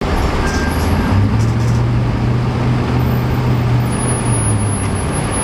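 Steady din of idling emergency-vehicle engines, with a low engine hum that comes in about a second in and fades near the end.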